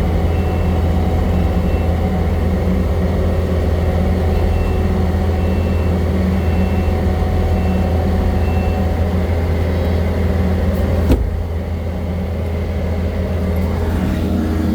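Kubota skid steer's diesel engine running steadily under load as it backs up the rollback's deck, with a backup alarm beeping about once a second. About eleven seconds in a single sharp knock is heard, the beeping has stopped and the engine note drops slightly.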